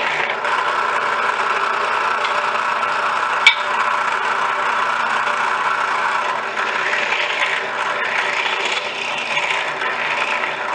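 Drill press running steadily while slats are drilled in a jig, with one sharp click about three and a half seconds in.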